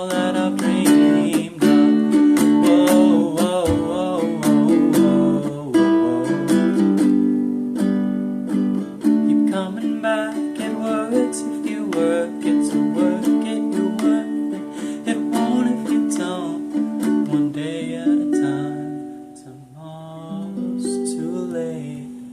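Music: the outro of an acoustic cover song, plucked-string accompaniment with wordless vocals over the first several seconds, thinning out and growing quieter near the end.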